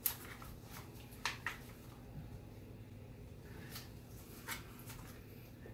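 Scattered light clicks and knocks of a Hi-Point 995TS carbine's barrel and action being handled and fed down into a bullpup stock, about seven in all, the sharpest right at the start. A faint low hum runs underneath.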